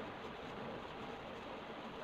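Steady, even background noise, with no distinct knocks or clicks.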